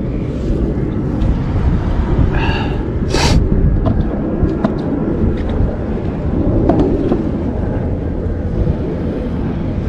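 Wind buffeting an action camera's microphone, a steady low rumble. A short pitched call sounds about two and a half seconds in, followed at once by a brief sharp hiss.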